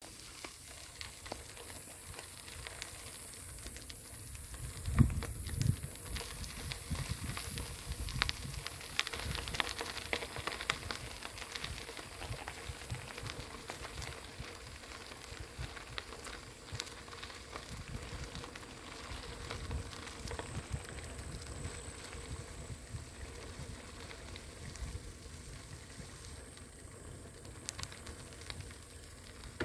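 Bicycle tyres crunching and crackling over a sand-and-gravel double-track, with scattered rattles and an uneven low rumble. A hard bump about five seconds in is the loudest sound, with a smaller one just after.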